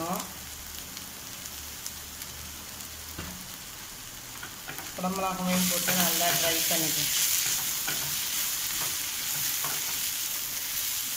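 Sliced onions and green capsicum sizzling in oil in a nonstick frying pan while a wooden spatula stirs and scrapes them. The sizzle gets louder about five seconds in.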